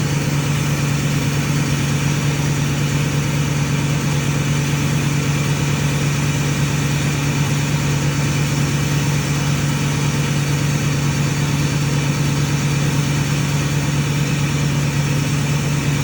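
Ford 6.4 Powerstroke V8 turbodiesel running at a steady idle.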